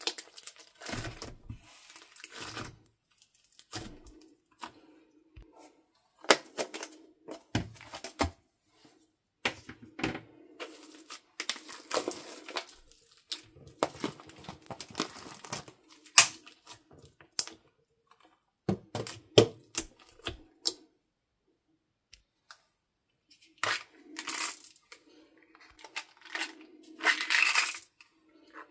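Hands kneading and squishing crunchy slime in a plastic bowl: irregular sticky crackles, pops and small hard clicks, with a short pause a little after the middle. Plastic containers and beads click and clink as more is added.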